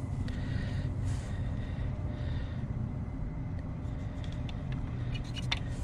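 Steady low background rumble, with two short faint scratches of a felt marker on the plastic fan hub and a few light clicks near the end.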